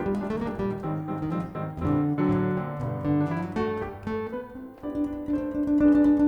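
Live jazz: piano playing with acoustic guitar, the notes changing quickly, with a brief dip in loudness about three-quarters of the way through.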